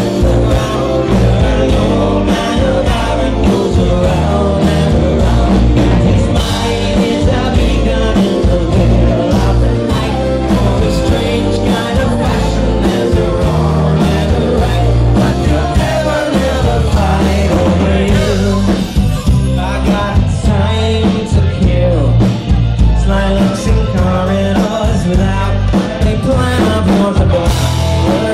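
Live rock band playing loud, with electric guitar, bass and drums under a man singing lead, heard from within the crowd.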